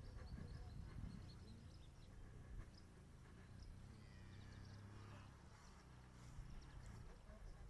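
Quiet outdoor ambience: a low rumble with faint bird chirps, clearest about four to five seconds in.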